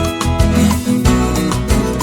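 Instrumental passage of a Brazilian country song: plucked guitar over bass and a steady beat.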